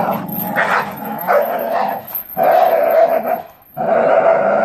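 Staffordshire bull terriers growling as they tug at an old tyre between them, in long stretches broken by short pauses.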